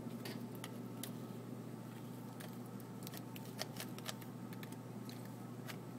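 Faint scattered clicks and light knocks of parts being handled while the projector's power supply is worked loose, over a steady low hum.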